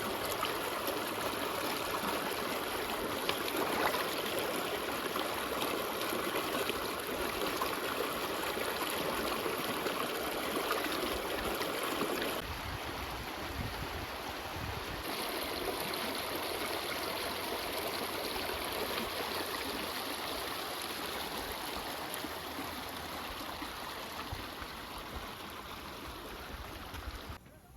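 Water running steadily in an even flow, a little quieter from about twelve seconds in, then cutting off just before the end.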